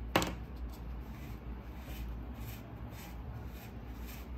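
A small sponge rubbing over the inside wall of a freshly formed clay bowl, in soft, irregular scrubbing strokes. A single sharp click comes right at the start, as the silicone rib is put down.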